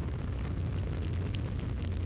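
Steady low rumble of a rocket engine in flight, a sound effect under the animated third stage burn, with no rise or fall.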